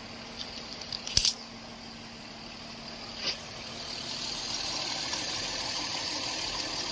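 Toyota Crown's 3.0-litre naturally aspirated V6 idling steadily, with a sharp click about a second in. The engine sound grows louder from about four seconds in.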